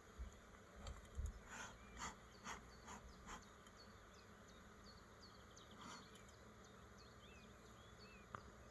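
Faint buzzing of honeybees flying around an opened hive. A string of soft knocks and rustles in the first few seconds and one more near the middle, with faint short high chirps.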